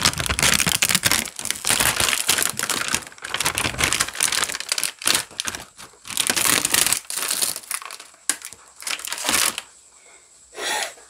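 Thin clear plastic sheet crinkling and crackling as it is peeled off an acrylic-painted canvas and handled, with many rapid crackles that die down near the end, then one short final crinkle.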